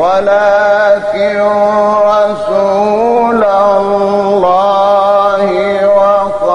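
A man reciting the Quran in the melodic mujawwad style, holding long drawn-out notes that step and slide between pitches, with short breaks between phrases.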